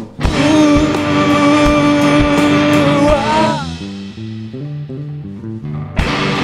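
Live rock band with electric guitars, bass and drums. A loud full-band chord rings for about three seconds and ends in a wavering pitch bend, then a quieter line of single picked notes steps along. Near the end the whole band with drums comes crashing back in.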